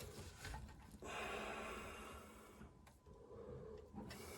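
A person's long, noisy breath out about a second in, after a few faint small clicks of handling.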